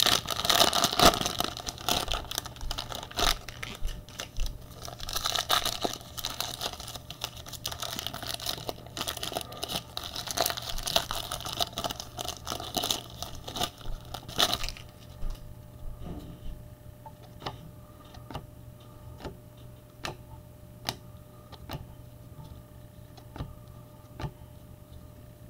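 Cellophane wrapper of a Panini Chronicles football cello pack crinkling and tearing as it is opened by hand, for about the first fifteen seconds. After that it is quieter, with scattered light clicks and taps as the cards are slid out and handled.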